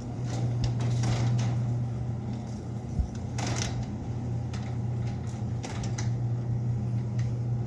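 Genie Pro Max chain-drive garage door opener running, raising a sectional garage door: a steady motor hum with scattered clicks and rattles, a sharper click about three seconds in.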